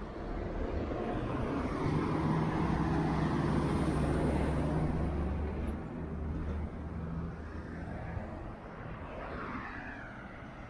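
A road vehicle passes close by. Its engine and tyre noise swell to a peak about two seconds in, hold for a few seconds, then fade away.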